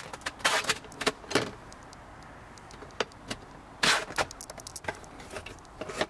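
Hard plastic fold-down tray table on the back of a Volkswagen Tiguan's front seat being handled: a series of short clicks and clatters as it is moved on its hinges, loudest about four seconds in.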